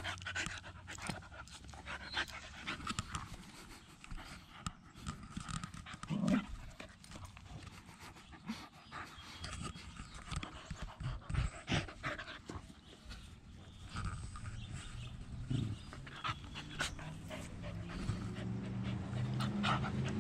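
Two dogs play-wrestling close up, panting heavily, with scuffling and many short clicks and knocks from mouthing and bodies tussling.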